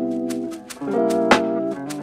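Background music: held chords with sharp percussion hits, the chord changing about halfway through.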